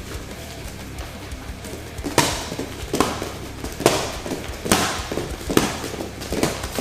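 A run of six sharp, slapping punch impacts, one a little under every second, from jabs, back fists and reverse punches landing in a reaction drill. Faint background music plays under them.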